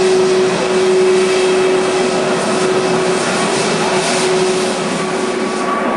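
Jet airliner's turbofan engines running in flight, a steady loud roar with a droning tone that fades out about five seconds in.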